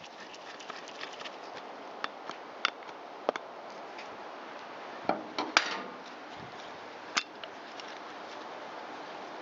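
Small metal parts and hand tools clicking and clinking during work on a chainsaw's oil pump: scattered sharp ticks, with a louder clatter about five and a half seconds in.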